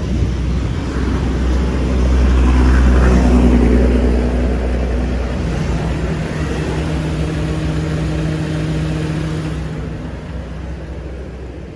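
A motor vehicle's engine running close by, a steady rumble that swells about two to four seconds in and drops away near the end.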